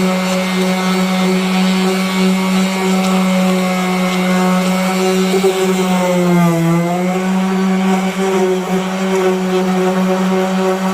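Power sander running against the car's painted body panels with a steady whine. Its pitch dips briefly about six and a half seconds in and comes back up.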